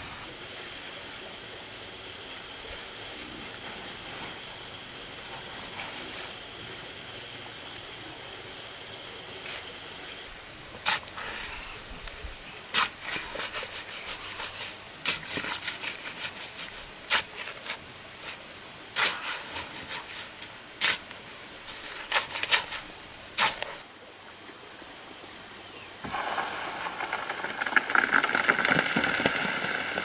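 Spade digging into a pile of sand and soil: a quiet stretch, then from about ten seconds in a series of sharp scraping strikes, roughly one a second, as the blade cuts into the gritty pile. Near the end a louder steady noise takes over.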